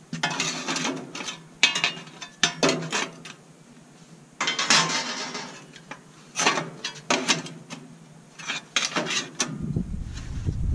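Steel sheet-metal tray being fitted into a welded steel tube frame: metal clanking and scraping in about six bursts as the tight-fitting plate is pushed and worked into place. A low rumble sets in near the end.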